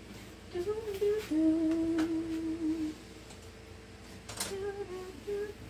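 A woman humming a tune: a few short wavering notes, one long held note, then a few more short notes. A sharp clink of dishes comes about four and a half seconds in.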